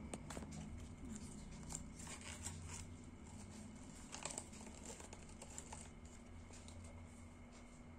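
Faint crinkling and tearing of packaging being opened by hand, in scattered short crackles, a little louder about four seconds in.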